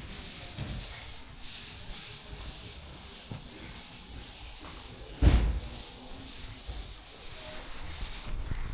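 Paint being scraped off a bare car body: continuous rough scraping and rubbing, with one heavy thump about five seconds in.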